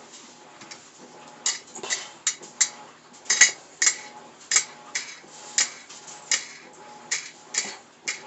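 Clamping knobs being threaded onto carriage bolts over washers on an angle-iron jig: a run of sharp clicks and light metallic taps about twice a second, starting about a second and a half in.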